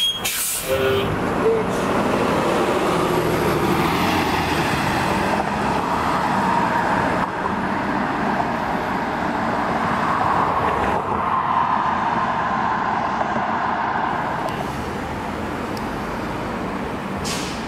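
City transit bus pulling away from a stop and driving off, its engine and drivetrain running with a few drifting tones over road and traffic noise. About three-quarters of the way in, the sound turns to somewhat quieter city street traffic.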